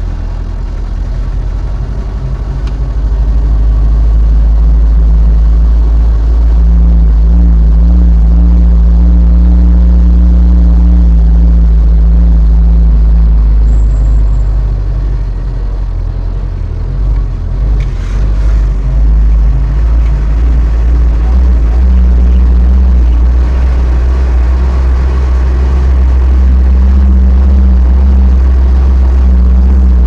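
Engine and road noise of a moving vehicle heard from inside the cabin: a loud, steady low rumble with a droning engine note that shifts in pitch from time to time. A single brief knock sounds a little past halfway.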